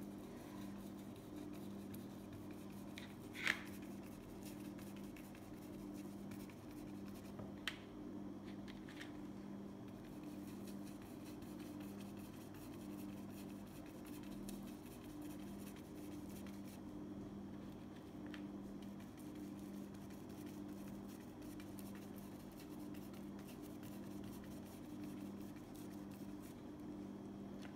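Faint scratching of a paintbrush being scrubbed and dabbed over a canvas sheet, over a steady low hum. A sharp click comes about three and a half seconds in, and a smaller one near eight seconds.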